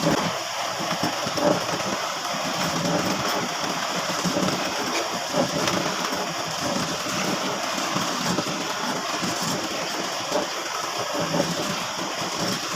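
Steady, noisy cutting of a power tool boring a hole into a wooden door frame.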